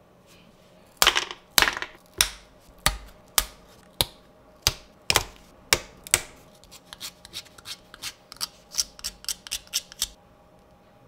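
Laser-cut plywood parts being pressed out of their sheet by hand: about ten sharp wooden snaps, roughly one every half second. From about six seconds in, a quicker run of lighter clicks as a small wooden gear is worked with a thin tool, stopping about ten seconds in.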